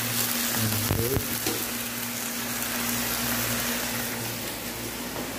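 Sliced eggplant frying and sizzling in an aluminium pot over a gas burner, a steady hiss with a low hum underneath. There are a couple of knocks about a second in as the pot or spoon is handled.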